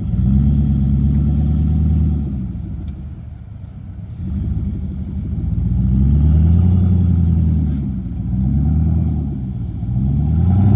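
Off-road SUV's engine revved in four surges, each rising and falling in pitch, the first two long and the last two shorter, as the driver tries to power up a snowy slope.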